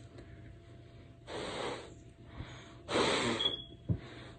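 Hard breaths blown out through a homemade sock face mask lined with a folded paper napkin, aimed at a lit lighter flame to test whether air gets through. There are two forceful blows, with a third starting at the end, and a short click near the end.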